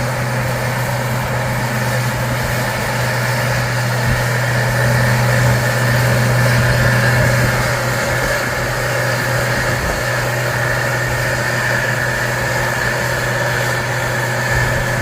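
Farm harvest machinery running steadily: an even, unbroken engine drone with a fainter high whine over it.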